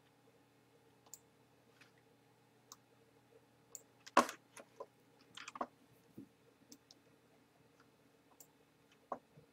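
Computer mouse clicking, a dozen or so short sharp clicks spaced unevenly, the loudest about four seconds in, over a faint steady hum.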